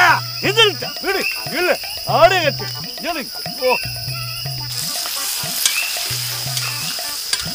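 Comic background music: short bouncing tones that slide up and down in pitch, over a repeating two-note bass. A steady high cricket-like trill sits under it, and a hiss joins about halfway through.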